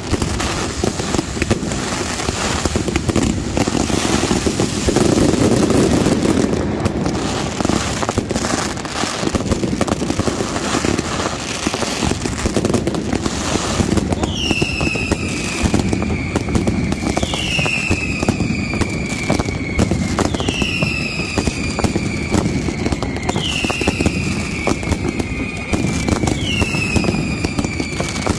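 Night mascletà fireworks: a dense, continuous crackle with rapid bangs from aerial effects and comets. About halfway through, shrill whistles join in, each falling in pitch, about one every two seconds.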